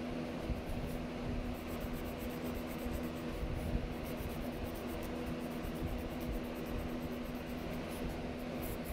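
Mechanical pencil scratching on sketchbook paper in rapid shading strokes, over a steady background hum.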